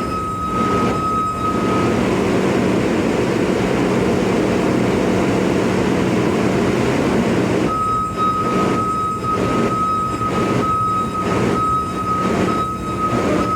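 Bobcat skid-steer loader's engine running steadily while it lifts an engine out of a wheel loader, with a high-pitched tone pulsing about twice a second for the first couple of seconds and again from about eight seconds in.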